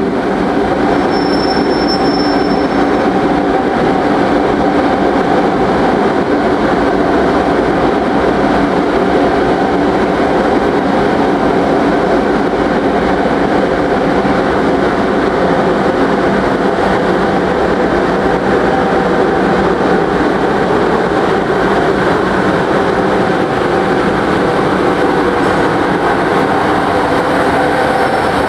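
British Rail Class 92 electric locomotive hauling a freight train of tank wagons slowly past. It gives a loud, steady hum with several held tones over the rolling of the wheels.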